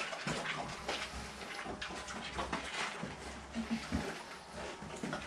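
Footsteps on a dirt floor, with scattered faint knocks and rustles and a brief animal sound about three and a half seconds in.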